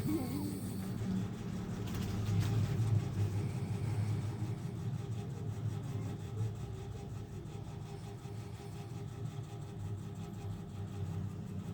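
A woman snoring, a low, steady drone.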